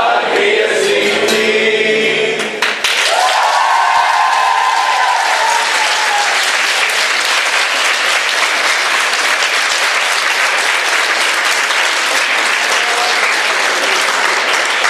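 A group of voices singing stops about three seconds in, and loud audience applause follows, with a cheer rising over it as the clapping begins.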